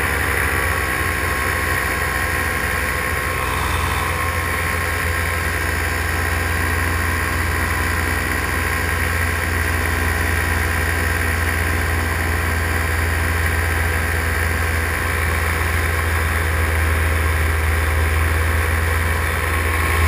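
Paramotor engine and propeller running steadily at cruise power in flight, with no change in throttle.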